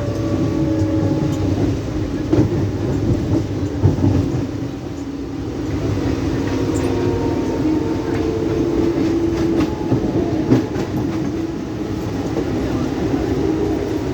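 Mumbai suburban local (EMU) train running on the rails, heard from aboard: a steady rumble with scattered clicks of the wheels over rail joints and a faint steady whine.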